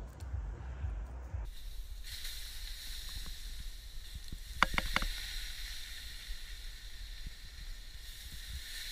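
Water hissing into steam on the heated stones of a camp sauna, a steady high hiss that sets in about two seconds in, with a few sharp crackles a little past halfway.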